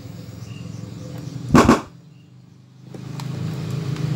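Low electrical hum from a powered Polytron active speaker under repair. A loud thump comes about one and a half seconds in, the hum drops out for about a second, then it comes back and grows steadily louder.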